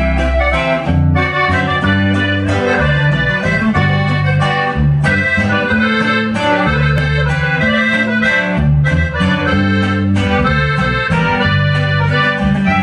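Live norteño band playing an instrumental passage: a button accordion carries the melody over a bass line that changes note about every half second.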